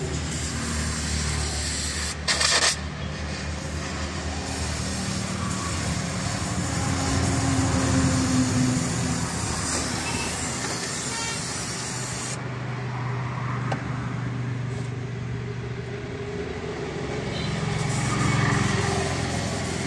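Motor vehicle engines running and passing, their low pitch shifting and their loudness swelling and fading twice. A brief loud burst of noise comes about two seconds in.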